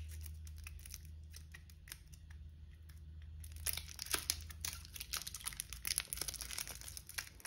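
Clear plastic shrink-wrap being picked at, peeled and torn off a stack of trading cards, crinkling and crackling in quick irregular bursts from about halfway through.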